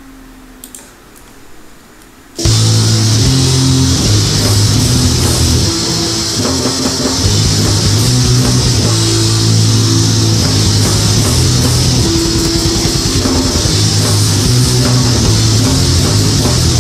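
After a short quiet opening, a raw black metal track starts suddenly about two seconds in and plays loudly: distorted electric guitars over a drum kit.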